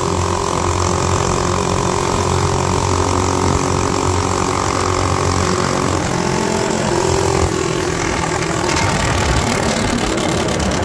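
Modified Predator 212cc single-cylinder four-stroke minibike engine running steadily under way, with wind noise over the microphone. Its note steps slightly lower about six seconds in, and a few clicks sound near the end.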